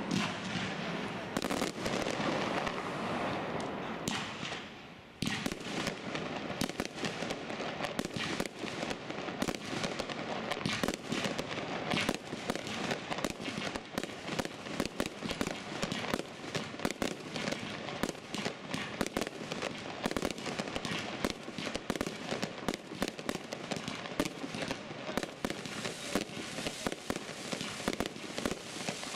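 Fireworks display: aerial shells and multi-shot cakes going off in rapid succession, many sharp bangs and pops a second. It eases briefly about four seconds in, then resumes with a sudden burst about five seconds in and stays dense.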